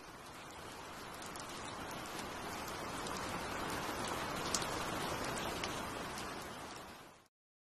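Steady rain, thick with fine drop patter and scattered clicks, fading in, growing louder toward the middle, then fading out and cutting off near the end.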